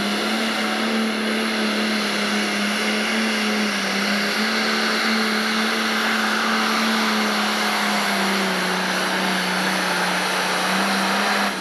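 Pro stock pulling tractor's turbocharged diesel engine at full throttle under heavy load, dragging the weight-transfer sled. It holds loud, nearly steady high revs throughout.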